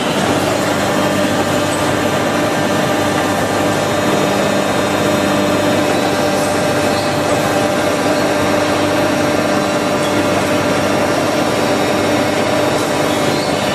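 Automatic plywood edge-trimming saw machine running, its saw motors giving a constant hum with a steady tone over a dense mechanical noise.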